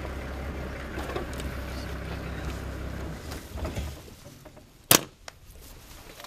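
Vehicle engine running with a low hum that stops about four seconds in, then a single sharp shot from a dart rifle firing a tranquilliser dart, followed by a faint click.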